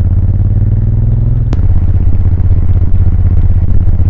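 Suzuki VL1500 Intruder LC's V-twin engine running under way, with wind rush. The note rises slightly, then there is a click and the pitch drops about one and a half seconds in.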